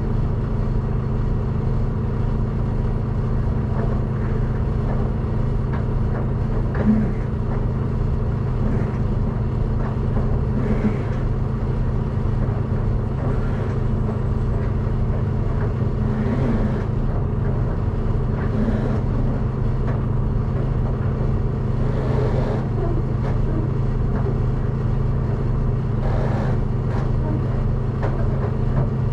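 Semi truck's diesel engine idling, a steady low hum with a few faint brief noises over it.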